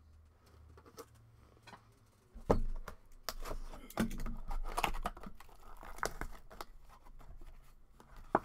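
Trading-card pack wrapper being torn open and crinkled by hand, with small clicks and rustles of handling; the loudest tears come about two and a half seconds in and again from about four to six seconds.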